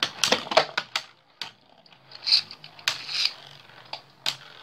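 Two Beyblade Burst spinning tops, Legend Spryzen S3 and Alter Cognite, clashing in a plastic Beyblade Burst stadium: a quick run of sharp clicking hits in the first second, then scattered single hits and a couple of brief scrapes.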